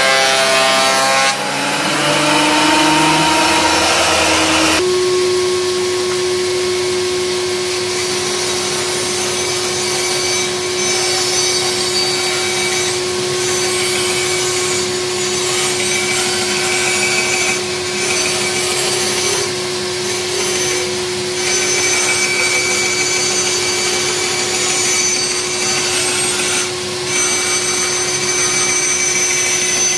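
A benchtop thickness planer runs as a board feeds through it for the first few seconds. Then a bandsaw runs with a steady hum while it rips a board lengthwise against its fence.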